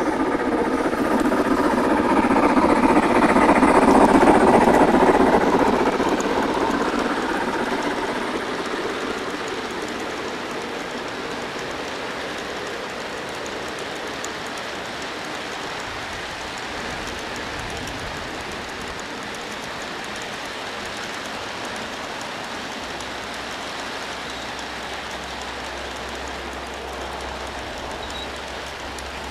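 A long train of G-scale model tank cars rolling past on garden-railroad track, a steady clatter of wheels on rail. It is loudest about four seconds in, then fades as the cars move away.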